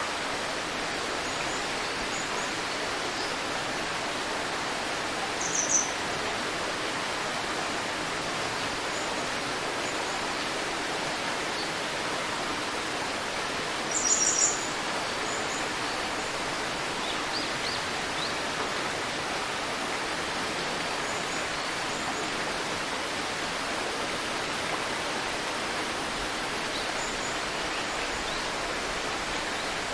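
A river flowing with a steady rushing sound, with birds chirping over it in short high calls: one loud burst about six seconds in, a louder cluster around fourteen seconds, and fainter chirps scattered through the rest.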